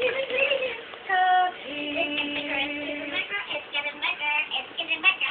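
A young child singing and vocalising in a high voice: a short held note about a second in, a longer steady note after it, then a run of quick short notes.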